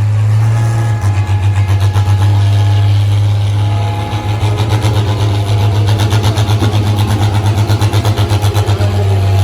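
Farm tractor engine running hard under load during a tractor pull, with a steady low drone and a fast, regular exhaust beat.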